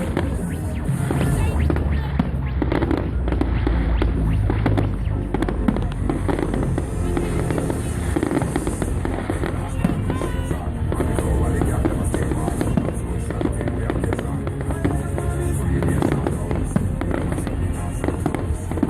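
Fireworks display going off: a dense run of bangs and crackles throughout, with music playing along.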